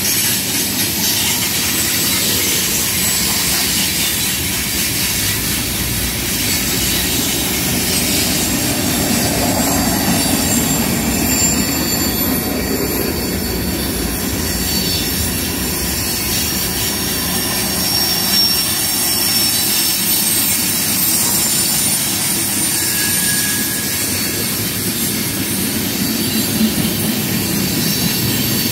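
Two freight trains passing each other on adjacent tracks: a loud, steady rumble of steel wheels on rail from the double-stack container cars close by and the hopper and tank cars beyond, with faint high wheel squeals now and then.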